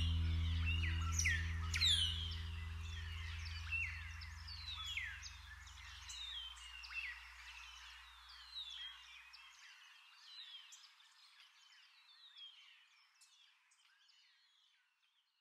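Birds chirping in quick, repeated downward-sweeping calls, gradually fading away near the end, over a held low chord that dies out about halfway through.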